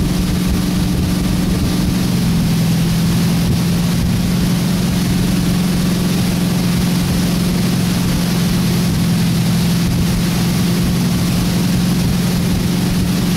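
Wakeboard tow boat's engine running steadily under way, with a steady rushing hiss over it. Its note drops a little about two seconds in.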